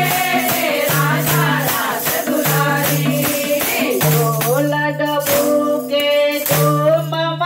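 Women singing a Gujarati devotional song together, with handheld wooden kartal clappers jingling and clacking on the beat, about two strokes a second in the first half and fewer later, over steady held low notes.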